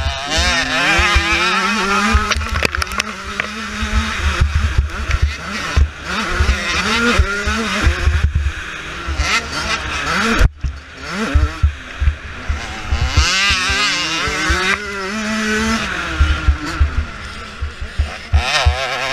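2014 Kawasaki KX85 two-stroke single engine revving hard, its pitch climbing and falling again and again as the rider works the throttle and gears, with wind buffeting the helmet-mounted mic. The sound drops out sharply for a moment about ten seconds in.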